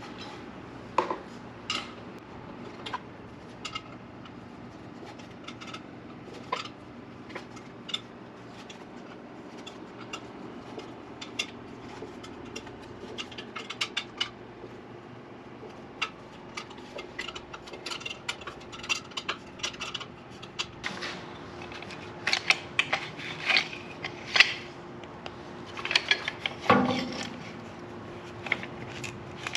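Irregular small metallic clicks and clinks of screws being driven by hand with a right-angle screwdriver bit into a small engine's sheet-metal shroud. The clicks grow busier in the second half, with a louder clatter near the end.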